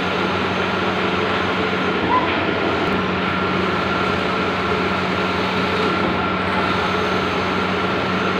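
Large-format outdoor printing machine running: a steady whirring noise with a low hum and a higher whine, and a few faint ticks.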